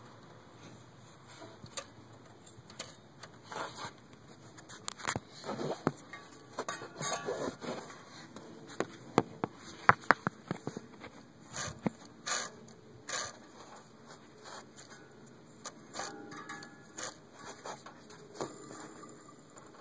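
Engine-accessory pulleys on a Jeep Wrangler's 4.0 L straight-six spun by hand, one after another: irregular clicks and knocks of hand and metal, with a few short whirring tones from the spinning pulleys. The clicks are densest around the middle.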